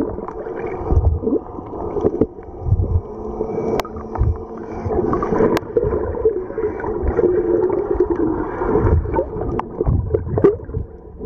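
Muffled underwater sound from a submerged camera: gurgling and sloshing water with a low wavering hum, low thumps and a few sharp clicks.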